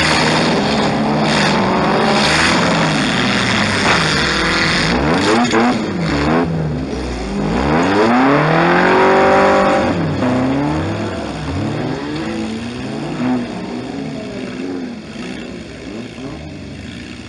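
Several demolition-derby car engines revving up and down at once, heard from inside a stripped-out derby car's cabin, with a few short knocks among them. The loudest rise and fall in revs comes about halfway through, then the engines ease off toward the end.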